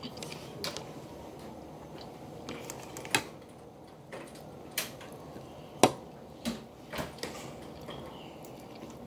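A fork clinks and scrapes on a plate in several sharp, separate clicks, with quiet chewing and mouth sounds of eating broccoli between them.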